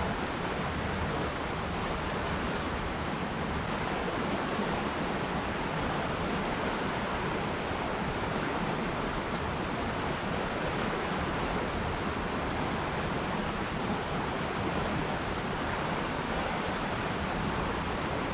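River water rushing and splashing as a steady, even noise.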